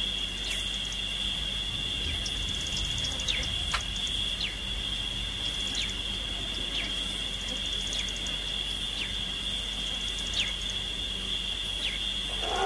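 Steady high-pitched insect drone, a cricket or cicada chorus, with brief falling chirps repeating about once a second.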